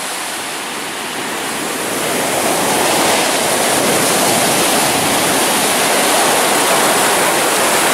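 Ocean surf breaking and washing up the sand at the shoreline, a steady rush of water that swells about two seconds in and then holds.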